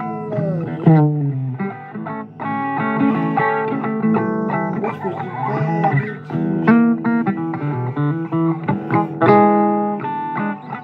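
Blues guitar music: an electric guitar playing notes and chords, with bent notes sliding down in pitch about a second in.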